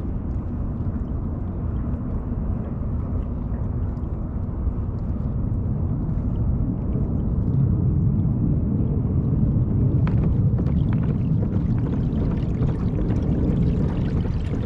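Steady low rush and gurgle of water along the hull of a Hobie Mirage pedal kayak under way while trolling, growing a little louder about halfway through. There are a few faint clicks about ten seconds in.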